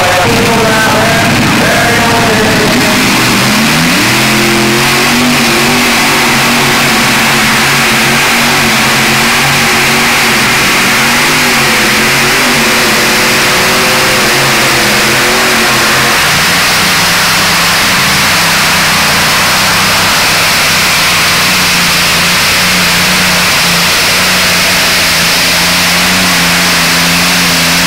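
Modified pulling tractors with supercharged engines running hard under load, loud and distorted on the recording. Their pitch holds fairly steady and shifts to a new note about 16 seconds in.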